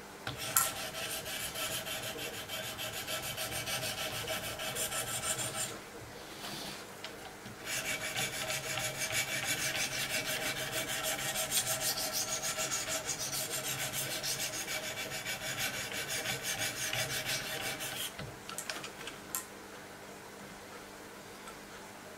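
Wicked Edge 400/600-grit diamond stones stroked rapidly along the edge of an M390 steel knife blade: a fast, even scraping with a steady metallic ring. It comes in two long spells with a short pause of about two seconds between them.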